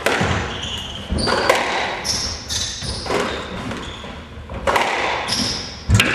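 Squash rally: the ball cracking off racquets and the court walls roughly once a second, each hit echoing in the court, the heaviest thud near the end. Short high squeaks of shoes on the wooden floor come between the hits.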